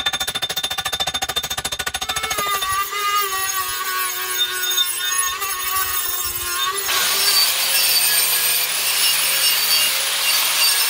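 Power tools dressing the end of a steel exhaust pipe. A fast, even rattle comes first, then a Dremel-type rotary tool with a sanding drum whines, its pitch wavering as it bites. From about seven seconds an angle grinder runs with a steady hum and a hiss of grinding.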